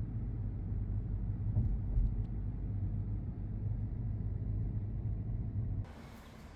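Steady low rumble of running machinery. Near the end it cuts off sharply and gives way to a quieter, even hiss.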